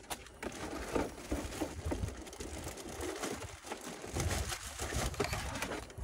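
Rustling and scattered light clicks of wire and tools being handled, over a low rumble that swells about four seconds in.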